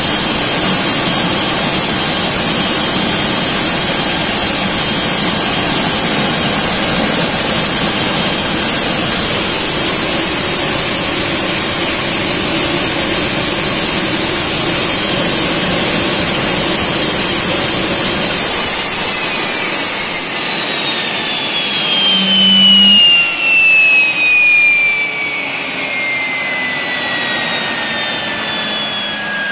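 Turbomeca Palouste gas-turbine air start unit running at steady speed: a high, steady whine over a rush of air. About 18 seconds in it is shut down, and the whine falls steadily in pitch as the turbine spins down.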